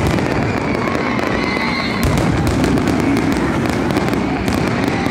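Aerial fireworks shells going off in a dense barrage, bangs and crackling coming one over another without a pause.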